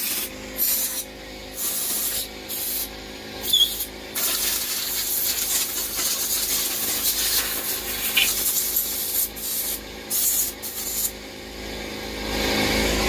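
Compressed-air blow gun hissing in short blasts, then one long steady blast of about five seconds, then a few more short blasts, blowing debris out of the lifter valley and pushrod area of a stripped Mercruiser 260 V8 block to clean it before the intake manifold goes on.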